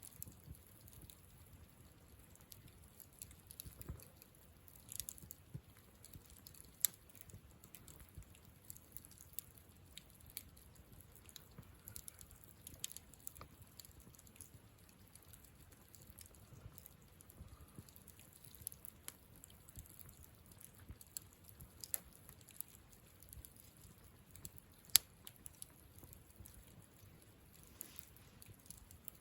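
Campfire burning softly, with scattered sharp crackles and pops from the burning wood over a faint hiss; two louder snaps stand out, the sharpest near the end.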